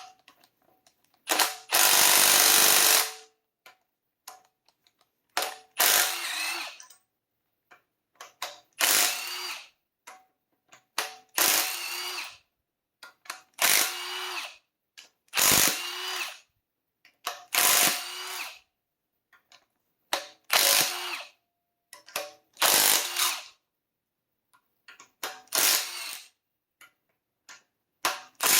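A handheld power wrench spinning bolts loose one after another on a Honda K24A2 engine: about ten short runs of a second or so, each a couple of seconds apart and rising in pitch as it spins up, with a longer run about two seconds in.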